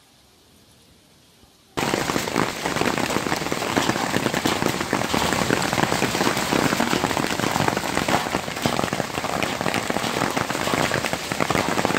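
Hail mixed with heavy rain pelting the ground, a dense patter of countless small hits that starts abruptly about two seconds in, after a faint hiss.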